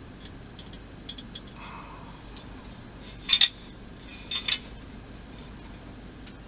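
Light clicks and taps of small model-kit parts and tools being handled and fitted on a workbench, with a few faint ticks at first, two sharp clinks about three and a half seconds in and a quick cluster of smaller ones about a second later.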